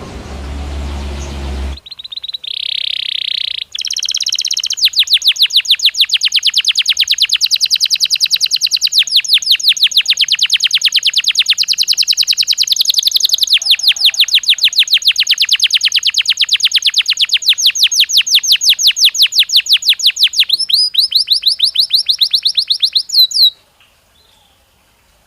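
A brief noisy hum opens the clip. Then a Belgian canary sings: a few whistled notes lead into a long, fast trill of evenly repeated high notes that runs for nearly twenty seconds and cuts off abruptly near the end.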